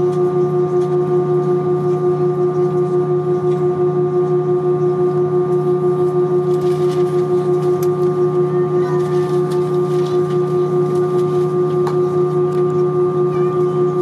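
Steady drone inside an Airbus A320 cabin from its engines and air systems: a loud, even, pitched hum with a slight regular pulsing and no change in pitch.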